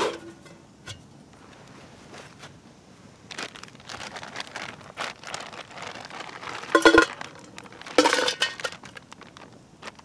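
A metal camping pot knocks once with a short ring, then a plastic zip bag crinkles as it is handled, with two loud metallic clinks about seven and eight seconds in.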